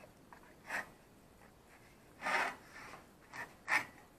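A sanding belt being slid off a Ryobi bench sander's rollers with its tension released: a few short scraping rubs, the longest and loudest a bit past halfway.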